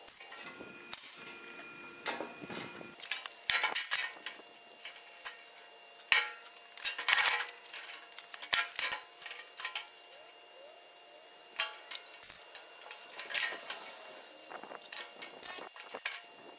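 Irregular knocks and clanks of metal on a sheet-steel box as it is tapped and worked with clamps and a steel bar, the thin steel ringing on after several of the hits; the loudest cluster comes about six to seven and a half seconds in.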